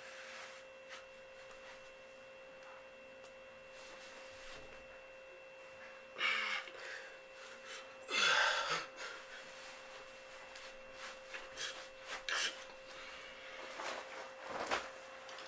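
Rustling and rubbing of clothes being handled, with two louder swishes about six and eight seconds in and small rubs and clicks near the end, over a faint steady high tone.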